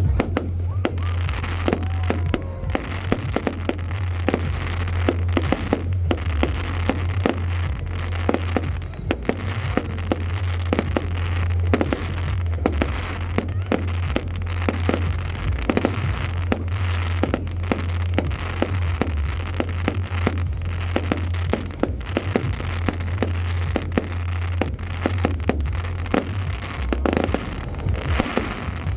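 Fireworks display: a dense, continuous run of bangs and crackling bursts, many each second, over a steady low hum.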